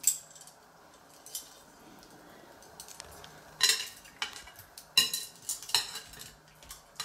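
A metal serving spoon scooping in a glass bowl, clinking sharply against the glass several times, most of the clinks coming in a cluster from about three and a half to six seconds in.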